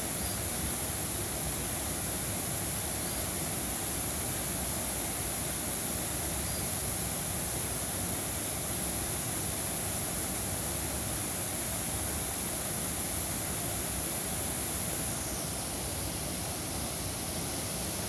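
Blanchard Springs waterfall: spring water gushing from an opening in a limestone bluff and plunging into a pool, a steady rushing of falling water.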